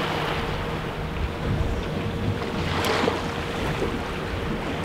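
Wind buffeting the microphone and choppy sea water splashing around a small fishing boat, with a faint steady hum underneath. A louder gust or splash comes about three seconds in.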